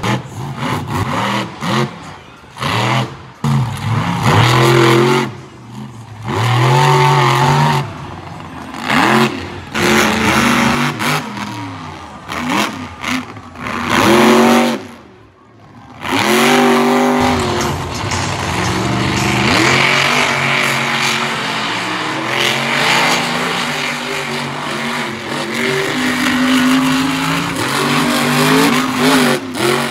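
Monster truck engines revving hard in a string of throttle bursts, the pitch climbing and falling with each and breaking off suddenly between them. From about the middle on, a longer stretch of steadier high revs.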